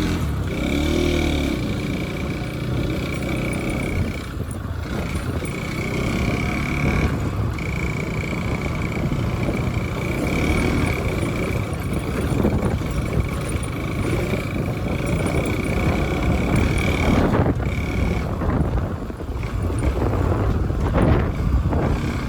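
Steady road noise of a ride in traffic: vehicle running, wind and passing traffic, strongest at the low end. A thin, high steady tone comes and goes through it.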